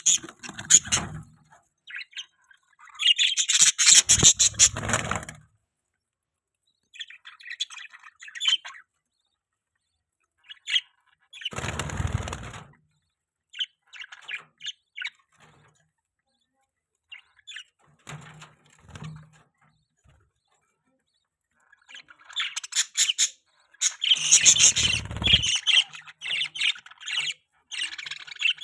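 Budgerigars chirping and chattering in irregular bursts with silent gaps between, busiest near the end. A low flutter sounds under a few of the bursts.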